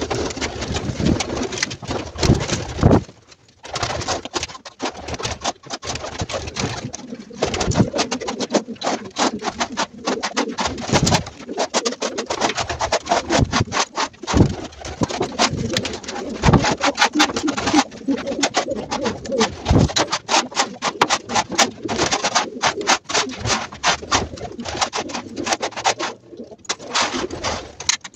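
Pigeons cooing in a loft, over a rapid, irregular scraping of a hand scraper dragged across the floor's dry droppings and bedding.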